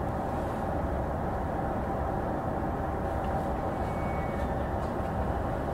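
E233 series electric train standing at a station, its onboard equipment giving a steady hum with a faint steady tone.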